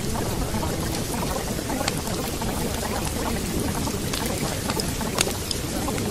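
Steady rain ambience, an even hiss with scattered sharper drop ticks.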